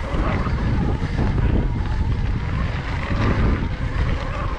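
Wind buffeting a chest-mounted action camera's microphone as an electric mountain bike rides a dirt trail: a heavy, uneven low rumble over the bike's trail noise, with a faint steady whine underneath.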